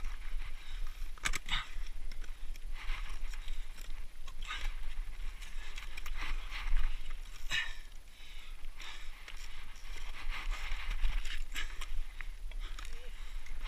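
Scrambling on granite: gloved hands and boots scuffing, scraping and knocking on rock in irregular clicks and rustles, over a steady low rumble.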